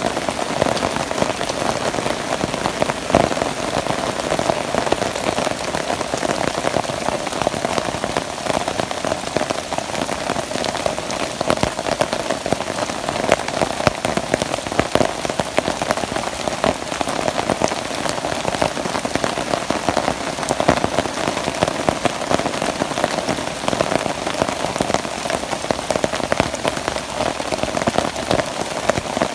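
Steady rain falling on the forest camp and its plastic tarps: a dense, even patter of close drop hits that does not let up.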